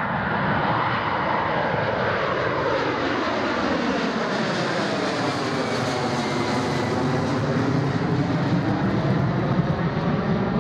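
Boeing 767 airliner's jet engines at climb power as it passes directly overhead and climbs away: a loud, steady jet noise with a sweeping, phasing tone that falls and then rises again as it goes over.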